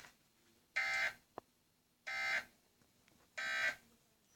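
Emergency Alert System end-of-message data bursts: three short, harsh digital screeches about 1.3 seconds apart, signalling that the alert has ended. A faint click comes just after the first burst.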